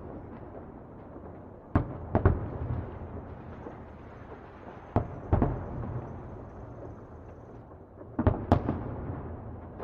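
Distant fireworks bursting: sharp booms in pairs about two seconds in and again about five seconds in, then a quick cluster near the end, each followed by a rolling, echoing rumble.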